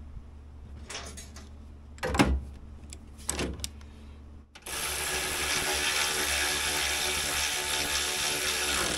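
A handheld power drill runs steadily for about four seconds, starting about halfway in, after a few short knocks of parts being handled in the sled's drive.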